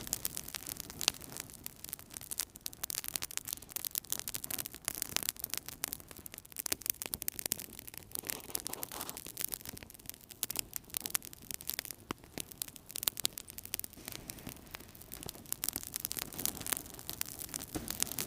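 Wood fire burning in a fireplace, crackling: a dense, irregular stream of small snaps and pops over a soft rush of flame.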